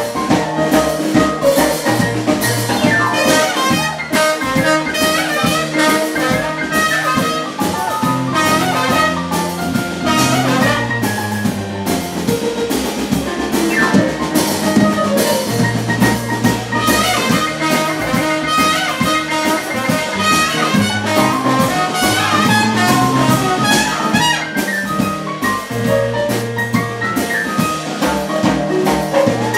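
Live jazz band playing an instrumental passage: trumpet and trombone over drum kit and a walking bass line.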